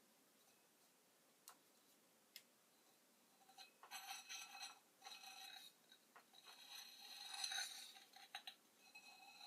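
Faint isolated clicks, then from about three and a half seconds in, several seconds of light clinking and scraping of small hard objects being handled, with a thin ringing tone running through it.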